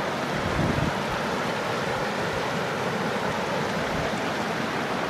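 River water rushing over rocks in shallow rapids, a steady even rush.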